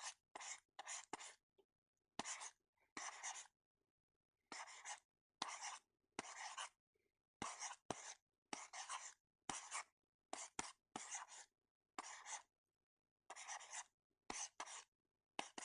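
A rapid run of about twenty short, dry, scratchy swish sound effects, one after another and often in pairs. Each lasts a fraction of a second, many start with a sharp click, and there is dead silence between them.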